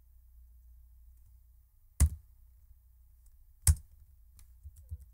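Computer keyboard keys struck twice, sharply, about a second and a half apart, followed by a few faint key taps near the end, over a low steady hum.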